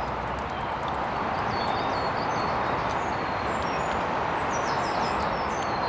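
Steady rushing of shallow river water, with small birds singing series of short, quick descending notes, loudest near the end.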